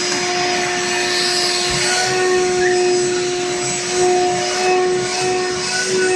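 Vacuum cleaner running on a dog's coat: a steady motor whine over an airy rush of suction. The whine steps up slightly in pitch about two seconds in, and the loudness swells a little near the end.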